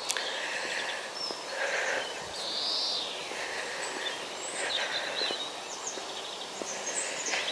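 Small birds chirping here and there over steady outdoor background noise.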